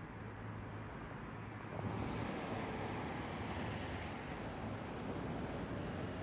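Road traffic: a motor vehicle going by, its noise swelling about two seconds in over a steady low hum.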